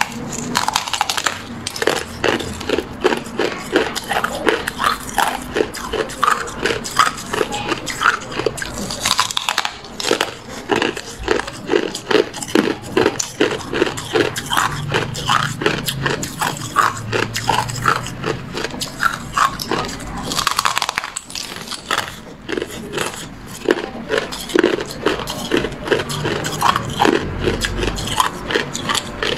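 Hard clear ice discs being bitten and chewed up close: a rapid, continuous run of sharp crunches and cracks, with a brief lull about two-thirds of the way through.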